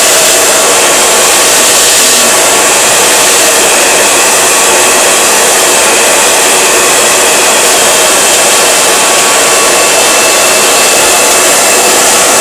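Handheld hair dryer blowing steadily on high, used in a blowout with a round brush on long layered hair.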